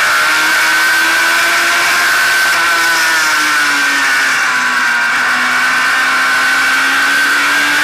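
Stock car's engine running hard at high revs, heard from the car itself; its pitch sags from about three seconds in to a low near five seconds, then climbs again, over steady wind and road noise.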